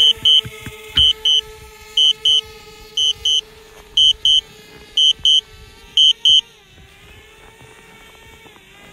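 Repeated double electronic alert beeps, one pair about every second, stopping about six and a half seconds in, over the steady whine of a DJI Spark drone's propellers, which dips in pitch near the end.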